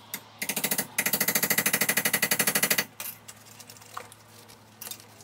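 Rapid hammer taps on a steel punch driven into the end of an aluminum tube held in a vise, about ten ringing metal blows a second. A short burst is followed by a longer run of nearly two seconds, then a few single taps.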